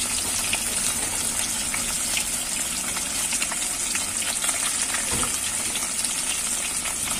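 Rohu fish steaks sizzling steadily in hot oil in a wok as they shallow-fry, with many small crackling pops. A single dull knock about five seconds in.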